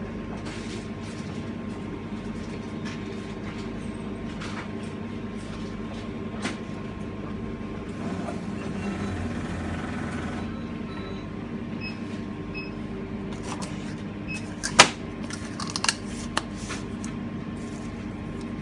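An f'real milkshake blending machine running with a steady hum, which swells into a broader whirr about eight to ten seconds in. Near the end comes one sharp clack, then a few lighter clicks.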